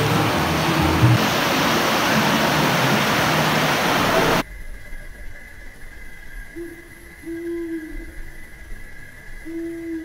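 Rushing water of a mountain stream pouring over rocks, which cuts off suddenly about four seconds in. Quiet background music follows.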